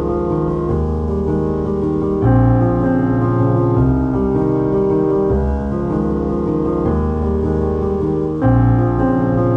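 Relaxing background piano music of held chords, with a louder new chord coming in about two seconds in and again near the end.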